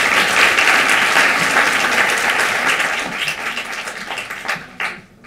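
Audience applauding, dying away about four seconds in with a few last scattered claps.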